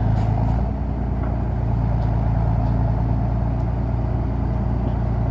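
Ruston-Bucyrus 30RB dragline's engine running steadily under load as the drag rope hauls the bucket in.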